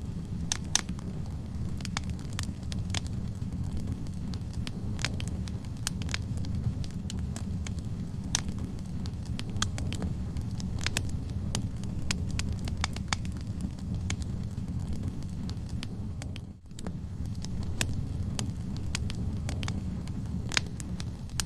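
Wood logs burning in a fireplace: a steady low rumble of flames with frequent irregular crackles and sharp pops. The sound dips briefly about three-quarters of the way through, then carries on as before.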